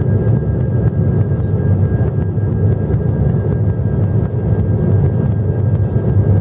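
Cabin noise of an Airbus A319-132's IAE V2500 turbofan engines at climb power just after take-off: a steady loud rumble with a faint high whine held on one pitch.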